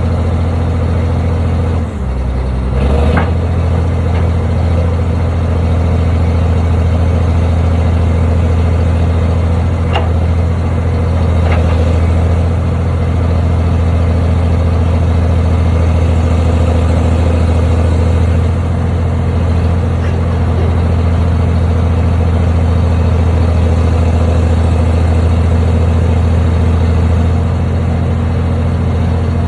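Construction machine's engine running steadily at a low, even speed, a deep constant hum. It dips briefly about two seconds in, with a few faint clicks around three, ten and eleven seconds.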